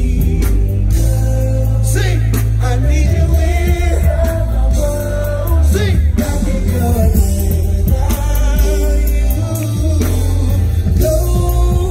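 Male R&B singer performing live over a loud backing track with heavy bass, holding and bending notes in drawn-out vocal runs.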